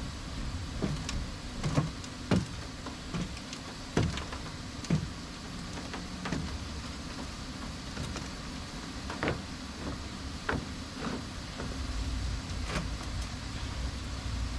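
Scattered, irregular knocks and clanks from a folding aluminum wheelchair ramp being set up at a truck, over a low steady rumble.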